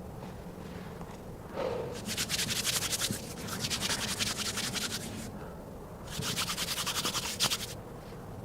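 Fast, rhythmic rasping strokes in two bouts of a few seconds each, like something being rubbed or scraped back and forth.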